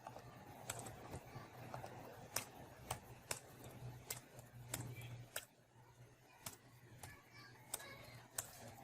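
Keystrokes on a computer keyboard: sharp, irregular clicks about every half second, over a low steady hum.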